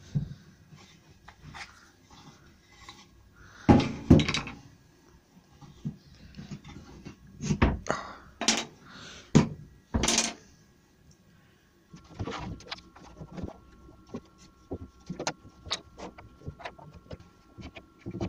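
Solid wood knocks and clunks as beech door rails and a plywood jig are handled and set down on a wooden work surface, loudest around four seconds in and again a few seconds later. After that come lighter, quicker taps and clicks of pieces being fitted together.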